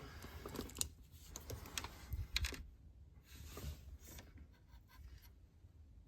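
Faint, irregular small clicks and rustles of hands handling the pulled-out car stereo and its plastic connectors and wiring.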